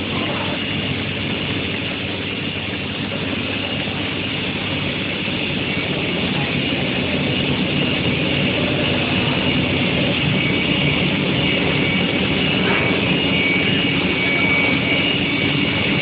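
Induction quenching and tempering line for square steel bar running: a steady, dense machinery noise with a high, steady whine on top, growing a little louder about halfway through.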